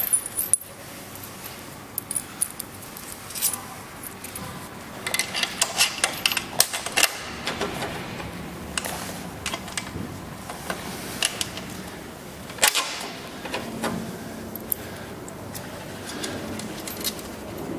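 Small metal parts clinking and clicking irregularly as a solo seat's metal hinge and hardware are handled and fitted onto the motorcycle's seat mounting plate. The clicks are thickest in the middle, with a sharper knock about two-thirds of the way through.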